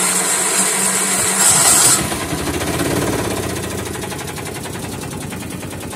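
Bajaj Maxima auto-rickshaw's single-cylinder engine running just after start-up following an oil and filter change, with a loud hiss for about the first two seconds. It then settles into a steadier, slightly quieter run with an even, rapid beat.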